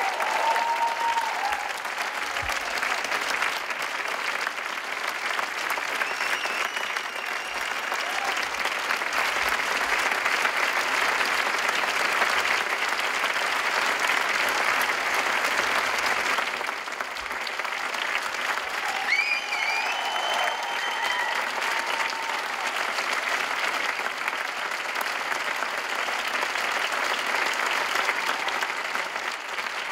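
Theatre audience applauding steadily during a curtain call, a dense continuous clapping. A few cheers from the crowd rise over it near the start and again about two-thirds of the way through.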